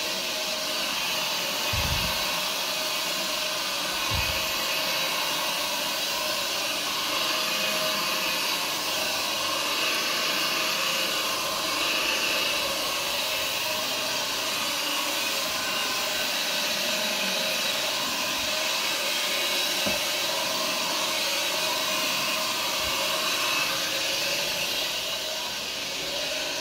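A Zipper carpet agitator scrubbing a carpet, its brush motor running with a steady whir throughout, with a few faint low bumps.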